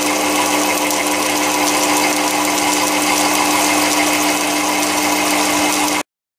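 Metal lathe running at a steady speed, its motor and drive giving an even hum with a steady whine, while a 2BA tap in a slip-clutch tapping fixture in the tailstock threads a hole in the spinning workpiece. The sound cuts off abruptly near the end.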